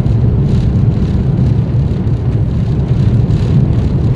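Airbus A330-200 cabin noise heard inside the cabin over the wing as the airliner rolls on the ground: a steady, loud low rumble of the engines and the ride over the pavement, with no rising spool-up.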